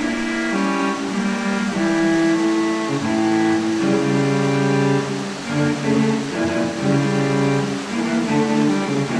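Instrumental background music of bowed strings, with held notes in a low register moving from one pitch to the next.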